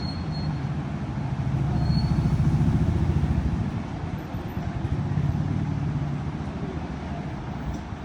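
Low rumble of a motor vehicle's engine, swelling about two seconds in and easing off again.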